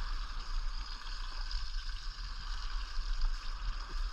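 Steady outdoor hiss with wind rumbling unevenly on the microphone.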